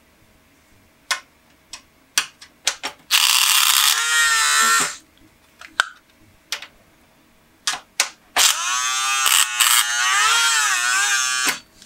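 Small electric motor in a 3D-printed PLA gearbox, powered from a USB port, running twice (about two seconds, then about three): a whine that wavers up and down with a rasping gear chatter, with sharp clicks from handling between the runs. The builder finds that a gap lets the printed gear push up and lose contact with the pinion.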